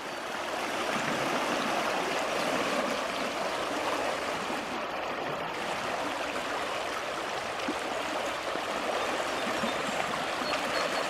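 Shallow creek water running steadily over a gravel riffle, an even rushing with no breaks.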